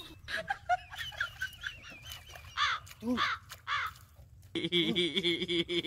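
A crow cawing three times, each call rising and falling, after a run of quick warbling bird calls. About four and a half seconds in, a loud, steady pitched buzzing sound starts and holds.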